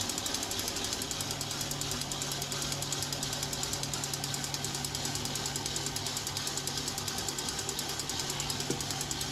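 A hand whisk beating an eggnog custard mixture, its wires clicking fast and evenly against the container.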